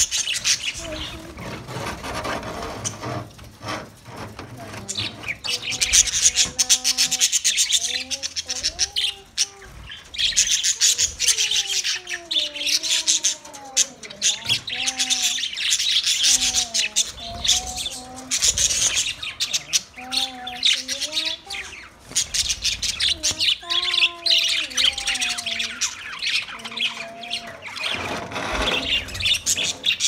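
A flock of budgerigars chattering: dense, continuous high chirps and warbles. Beneath it, from about six seconds in until near the end, a quieter line of long, wavering held notes that rise and fall like a distant singing voice.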